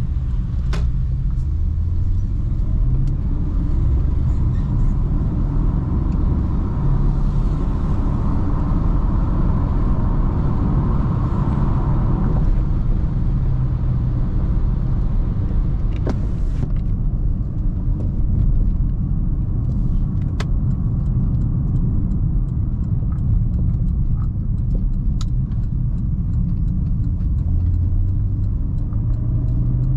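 A 2009 Porsche Panamera Turbo's 4.8-litre twin-turbo V8 running under way, a steady low rumble mixed with road noise, with a few light clicks.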